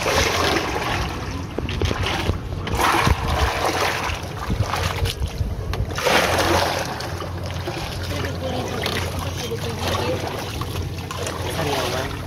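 Water splashing and sloshing against the side of a small wooden boat as a whale shark feeds at the surface alongside, in loud washes about a second in, around three seconds and around six seconds, over a low steady hum.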